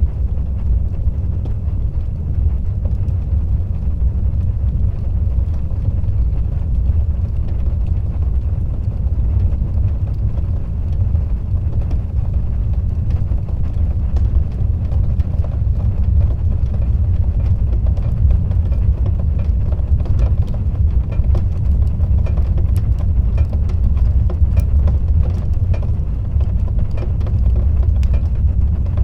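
Fire burning in a fireplace: a steady low roar with scattered sharp crackles and pops, which come more often in the second half.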